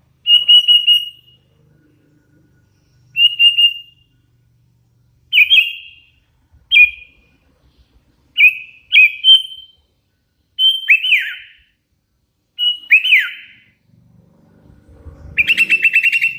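Young hand-fed sooty-headed bulbul (kutilang) calling: a series of short, clear whistled notes a second or two apart, several ending in a quick falling slur, and a fast chattering trill near the end.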